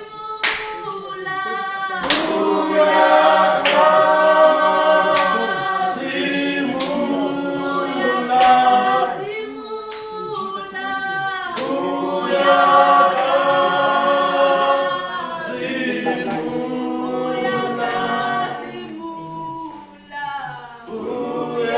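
A congregation singing a gospel song a cappella, several voices holding notes together.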